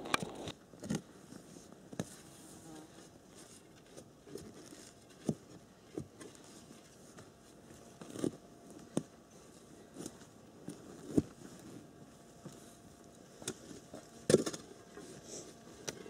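Irregular short knocks and crackles, about fifteen spread unevenly over a quiet background, from someone moving about and handling things on the forest floor.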